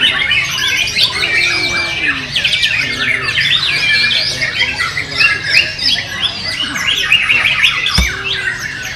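Many white-rumped shamas (murai batu) singing at once, a dense chorus of overlapping whistled phrases and trills from the contest birds. A single sharp thump sounds near the end.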